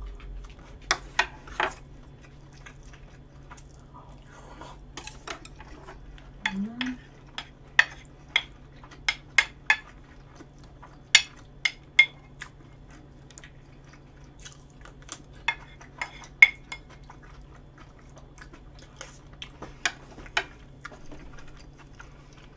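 Cutlery clinking and tapping against plates and dishes while eating: irregular sharp clicks, sometimes two or three in quick succession. A short voiced hum comes about a third of the way in.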